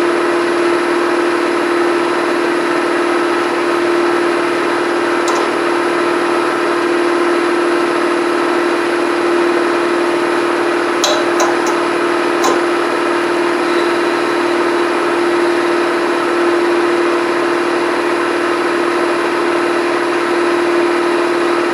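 Milling machine spindle running steadily with an end mill turning, as the table is raised to touch the cutter off on the workpiece. A few light high ticks come about 5 seconds in and again around 11 to 12 seconds in.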